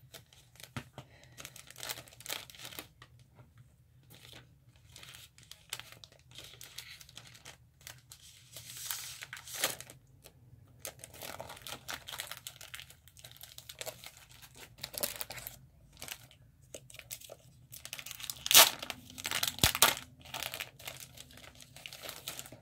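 Plastic packaging crinkling and being torn open by hand in irregular bursts, with the loudest tearing near the end.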